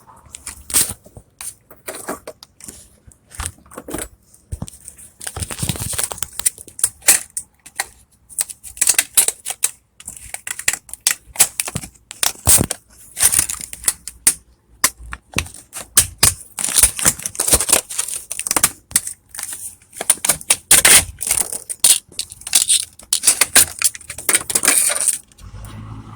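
A strip of stiff plastic packaging crinkling, scraping and clicking against a metal hotel-style door latch as it is worked to unlatch the door from outside. There are rapid irregular clicks and rattles, which stop abruptly near the end.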